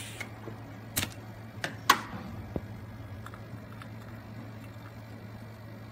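A few sharp metallic clicks and clinks from a compression tester's threaded hose adapter being handled and unscrewed at a spark-plug hole, the loudest about two seconds in, over a steady low hum.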